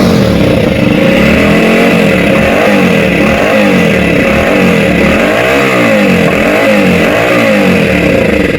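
Hero Splendor Plus BS6's single-cylinder engine running, revved up and down again and again, with the noise coming from the exhaust silencer. The sound is the sign of an exhaust leak from a silencer rotted through.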